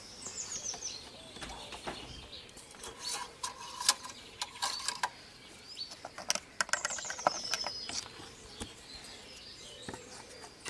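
Scattered clicks and knocks of the dipstick and a plastic oil funnel being handled in the engine bay, the sharpest about four seconds in. A small bird chirps in quick falling trills near the start and again about seven seconds in.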